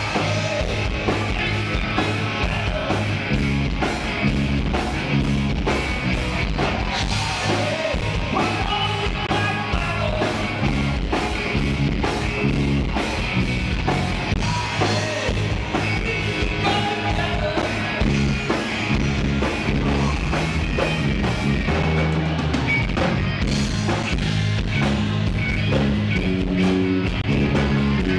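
Live rock band playing: drum kit keeping a steady beat under electric guitar, with a singer's voice over it.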